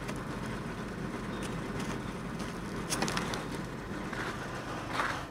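Truck engine idling steadily under a coat of ice, with scattered crunching and crackling of ice and a sharp crack about three seconds in.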